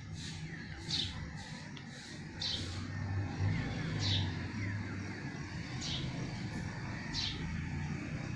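Birds chirping in short, sharp calls every second or so, over a steady low engine hum.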